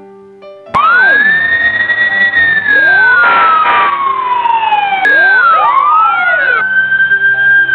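Emergency siren sound effect that starts suddenly under a second in. Its slow wail rises to a high pitch and falls gradually for about three seconds, then rises again about two-thirds of the way through and holds high.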